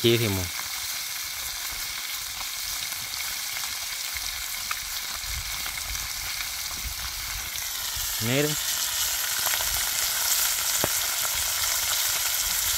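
Fish frying in hot fat in a pan: a steady sizzle that grows a little louder about eight seconds in.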